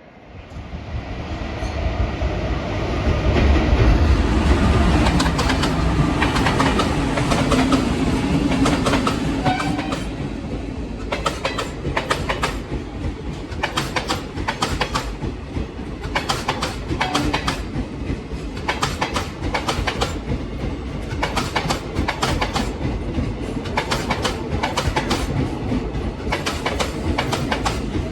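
Express passenger train passing close at speed. A rumble rises over the first few seconds, then the coaches' wheels clatter over the rail joints in a fast, regular clickety-clack.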